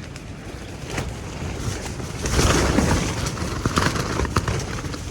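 Strong gusty wind buffeting the microphone in a low rumbling roar, with a gust surging about two seconds in and many short sharp snaps like fabric flapping.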